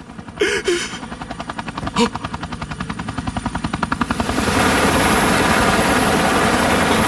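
Helicopter flying in: the fast, even beat of the rotor blades comes in about a second in and grows. From about four and a half seconds it becomes a loud, steady rotor roar as the helicopter closes in and hovers.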